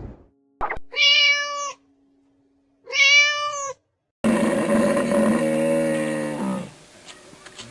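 A cat meowing twice, each meow about a second long with its pitch rising then falling. From about four seconds in, a lower, longer, rougher animal call follows.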